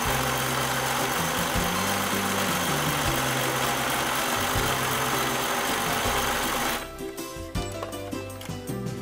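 Electric domestic sewing machine running steadily as it stitches through fabric, its motor hum shifting a little in pitch with speed. It stops about seven seconds in, leaving background music with plucked strings.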